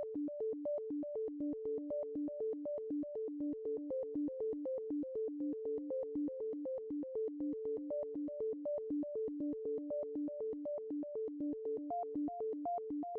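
Background electronic music: a repeating synthesizer pattern of short notes stepping between a few pitches at a steady, quick pulse.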